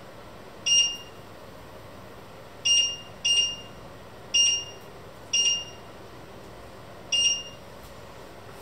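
Touch controls of a glass-top electric hob beeping as a finger presses them: six short beeps of one pitch at irregular spacing.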